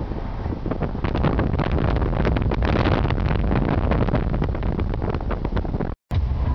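Wind buffeting the microphone at the window of a moving vehicle, crackling and gusting over a steady low rumble of engine and road. The sound drops out completely for an instant near the end.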